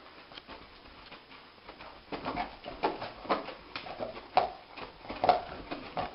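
A dog woofing and whimpering in its sleep, dreaming: about seven short, muffled calls, starting about two seconds in.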